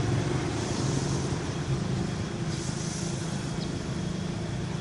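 Street traffic: a steady engine hum from motor vehicles running nearby, with a constant traffic noise under it.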